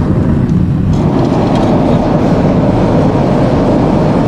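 Gas forge burner running with a loud, steady rush while the forge is lit and at heat.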